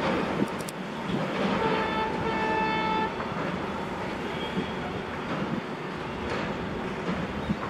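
WDP 4D diesel locomotive's horn, one blast of about a second and a half starting about a second and a half in, over steady background noise.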